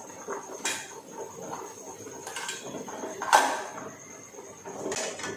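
Metal utensil clinking against a cooking pan several times, loudest about three seconds in, as fried fish pieces are slid into boiling curry gravy, with the gravy bubbling underneath.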